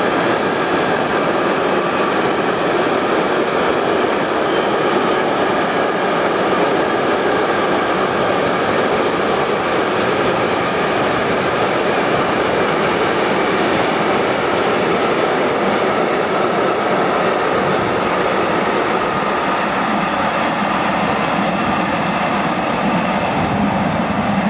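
Container freight train rolling past, a steady rumble of wagon wheels on the rails with a faint, steady high whine above it.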